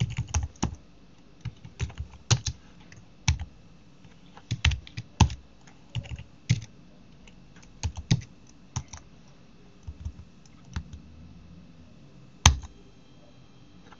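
Computer keyboard typing: irregular clusters of keystrokes, with one sharper, louder keystroke near the end.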